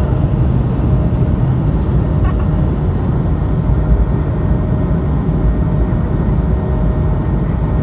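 Airbus A220 cabin noise during takeoff: its Pratt & Whitney PW1500G geared turbofan engines at takeoff power, heard over the wing as a loud, steady, deep rumble with faint steady tones above it.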